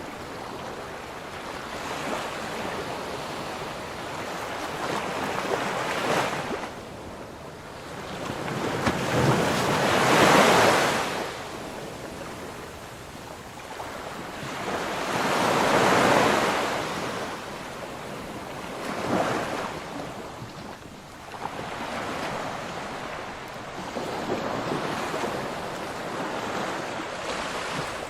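Sea waves breaking and washing in, one surge after another, the biggest crashes about ten and sixteen seconds in.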